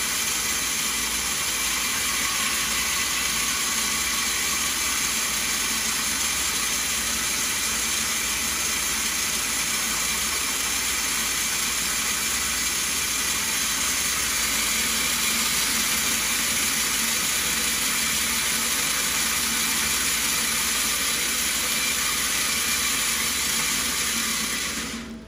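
Stone bead milling machine running, churning a batch of rough stone beads inside its stainless steel drum while water is fed in, as a steady dense noise that cuts off suddenly near the end.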